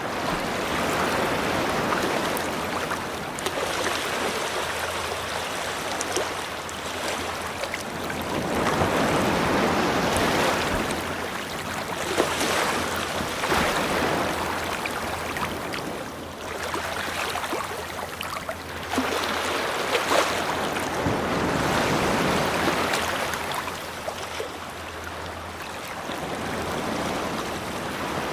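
Ocean waves breaking and washing up a beach, the surf swelling and fading every several seconds.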